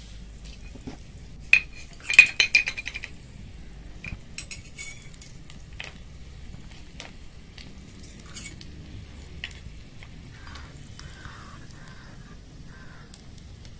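Steel slotted spoon clinking and scraping against a small iron kadai while a noodle puff fries in hot oil with a faint sizzle. A quick run of sharp clinks about two seconds in is the loudest part, followed by scattered lighter taps.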